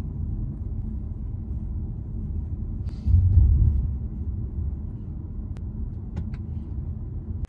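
Low, steady rumble of a car heard from inside the cabin, with a louder swell about three seconds in.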